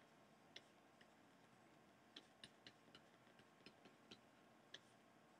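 Near silence broken by faint, irregular ticks of a stylus tapping on a tablet's writing surface while handwriting, about a dozen in all, bunched in the middle.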